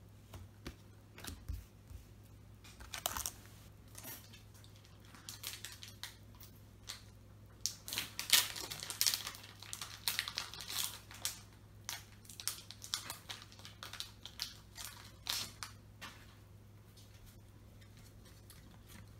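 Foil trading-card booster pack wrapper being crinkled and torn open by hand: a string of irregular crackles and clicks, busiest in the middle, over a faint steady hum.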